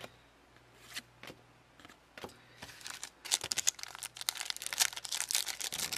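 A few faint ticks of cards being handled, then from about three seconds in a foil trading-card booster pack wrapper crinkles and crackles densely as it is torn open.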